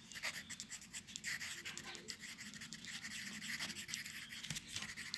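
Faint, irregular scratching and rustling with light ticks, the sort of sound made by handling paper or a pen near the microphone.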